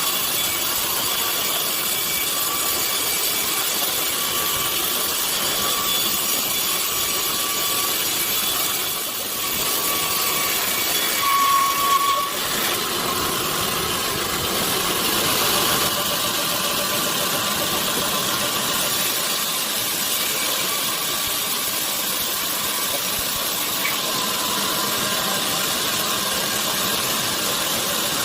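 Sawmill machinery running: a steady hissing machine noise with a faint on-and-off whine that briefly gets louder partway through.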